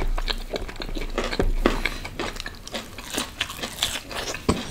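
Close-miked eating sounds: a person biting into and chewing a fried dahi kebab, with many short, irregular crunches and mouth clicks.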